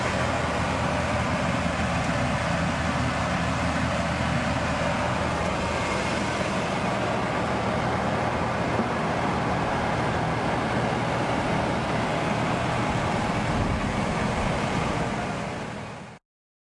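Rice-cleaning machine running steadily, a constant mechanical hum and rush as milled grain streams out of it. The sound fades out and cuts off shortly before the end.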